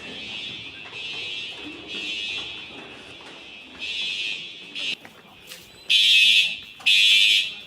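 Building fire alarm sounding in repeated high-pitched pulses, each about half a second to a second long, muffled at first and much louder from about six seconds in.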